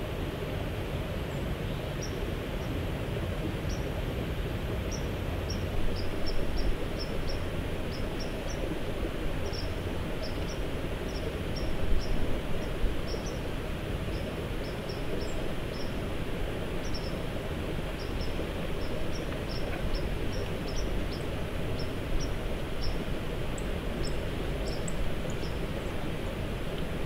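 Steady outdoor background of low rumble and hiss, with many short, faint high chirps scattered through most of it and two brief louder swells, about six and twelve seconds in.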